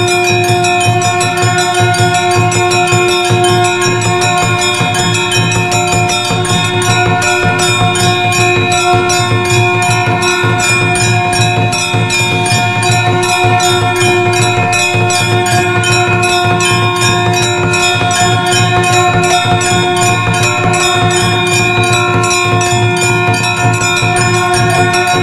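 Temple bells rung rapidly and without pause, their overlapping strikes forming a dense, even clangour over steady ringing tones.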